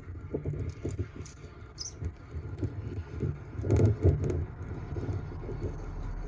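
Low, uneven rumble with rustling and scattered light clicks, louder about four seconds in: an adult bald eagle shifting about in the nest right beside the nest camera's microphone.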